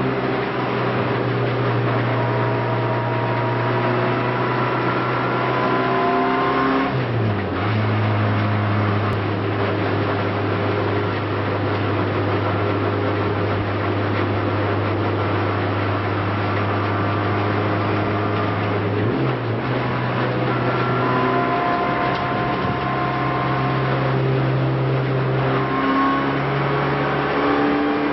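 Renault Clio race car's engine at racing speed, heard from inside the cockpit. The pitch climbs steadily in long pulls, with the revs dropping briefly about seven seconds in, around nineteen seconds, and near the end.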